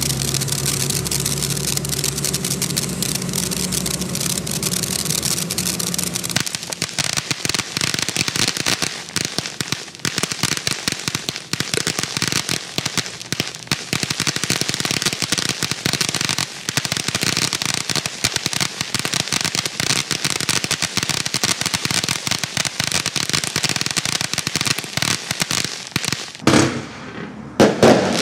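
Black Cat Fountain & Finale 200-gram firework fountain going off: a steady rushing spray for the first few seconds, then about twenty seconds of dense crackling. Two loud bangs near the end mark the finale.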